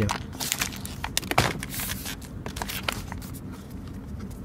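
Plastic and cardboard food packaging rustling and knocking as items are picked up and shifted around in a pile, in short scattered strokes over a steady low hum.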